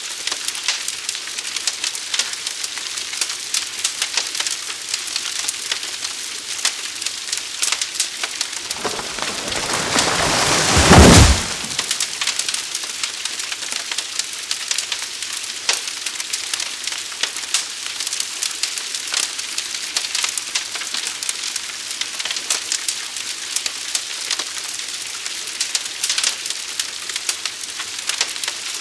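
A large fire burning, crackling and popping steadily over a constant hiss. Partway through, a rising whoosh swells for about two seconds, becomes the loudest sound, and cuts off suddenly.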